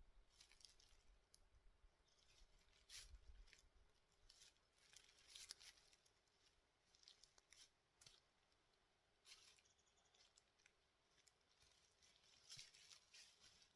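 Near silence broken by faint, scattered small rustles and clicks, irregular and a fraction of a second each.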